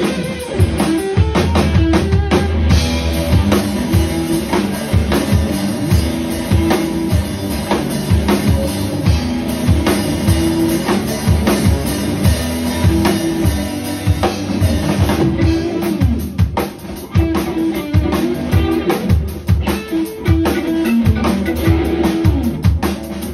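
Live instrumental rock band music: a drum kit with a busy kick drum and rimshots, an electric guitar and a keyboard playing together. The band drops back briefly about 16 seconds in before carrying on.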